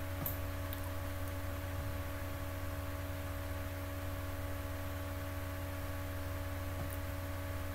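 Room tone of a recording setup: a steady electrical mains hum over faint microphone hiss, with a faint tick or two near the start.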